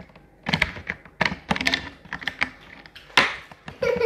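Crackly clicks and rustles of people eating burgers at a table, with paper wrappers handled and food chewed close by, coming in quick irregular runs.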